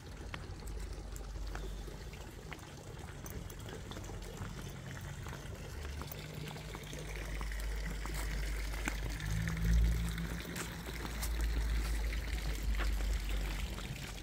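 Water splashing and trickling, with scattered small clicks and a low rumble underneath that swells in the second half.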